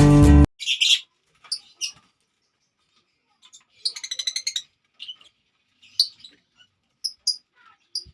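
Lovebirds giving short high-pitched chirps at scattered moments, with a rapid chattering run of calls about four seconds in. Guitar music cuts off about half a second in.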